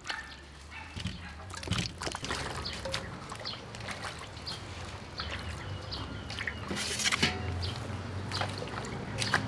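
Hands swishing and splashing vegetables in a metal basin of water while washing them, with irregular drips and trickles of water.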